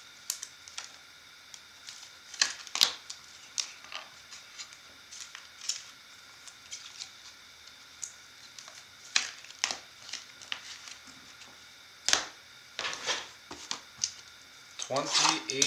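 Hands handling a trading card in a rigid clear plastic holder and a cardboard card box: scattered light clicks, taps and rustles. A few sharper taps come about three, nine, twelve and thirteen seconds in.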